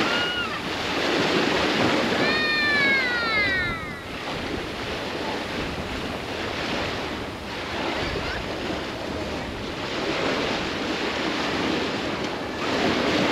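Sea surf breaking and washing on a sandy beach, with wind, the wash swelling and easing. A short high call slides down in pitch about two seconds in.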